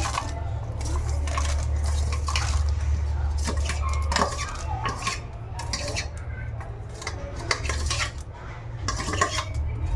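A spoon scraping and clinking against a kadai as fried peanuts are stirred into puffed rice, with many short clicks and scrapes at irregular intervals.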